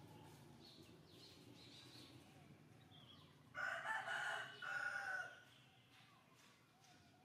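A single loud bird call about halfway through, lasting under two seconds and breaking in two, with faint high chirps before it.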